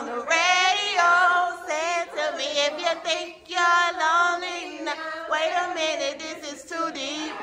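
A woman singing unaccompanied, holding long notes with a wavering vibrato.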